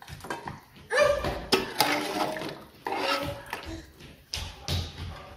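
A metal ladle scraping and clinking against a wok and an aluminium stockpot as cooked duck pieces are scooped from one to the other. About five sharp knocks ring briefly.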